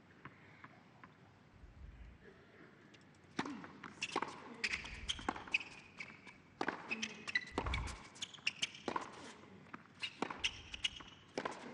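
Tennis rally on an indoor hard court. Racquet strikes and ball bounces come as sharp pops at an irregular pace, starting about three and a half seconds in, with sneakers squeaking on the court surface.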